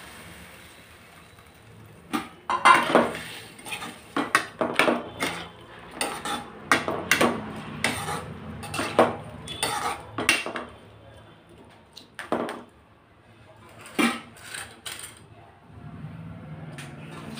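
A metal spoon clinking and scraping against a steel bowl and a metal kadai as cooked dal is scraped out and stirred in. The knocks are sharp and irregular, start about two seconds in and die away near the end.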